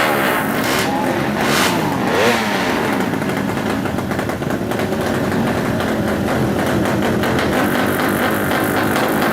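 A tuned 200cc four-stroke drag bike engine, revved up and down several times in the first few seconds and then held at a steadier speed.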